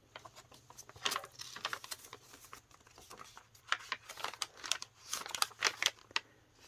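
Paper rustling and crinkling as the pages and fold-out paper cards of a handmade junk journal are handled and flipped open, in irregular crisp rustles, a few louder ones in the second half.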